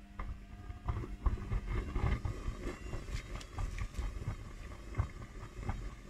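Hotpoint front-loading washing machine tumbling its load in deep, foamy water, with irregular sloshing and low thuds against the door as the inlet keeps pouring in. The drum is overfilled because the machine is running without its pressure switch.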